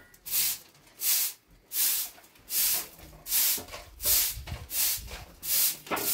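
Straw hand broom sweeping a bare floor in short, even strokes, each a brief hiss, about eight in six seconds.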